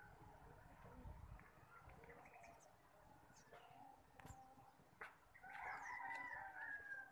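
A faint, drawn-out animal call lasting nearly two seconds, starting a little after five seconds in, over a quiet background with a few faint short chirps before it.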